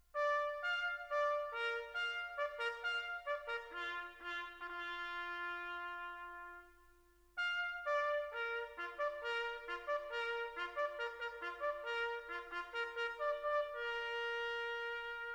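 Background music played on brass, led by trumpet, in phrases of moving and held notes. It stops briefly about seven seconds in, then starts again.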